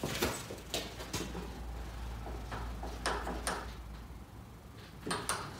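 Bridgeport milling machine table being moved along its X axis: irregular clicks and knocks from the table's handwheel and leadscrew, over a low steady hum that drops away about four and a half seconds in.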